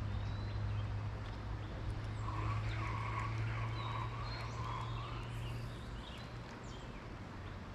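Steady rushing outdoor background noise with a constant low hum, easing slightly near the end, and a few faint short tones in the middle.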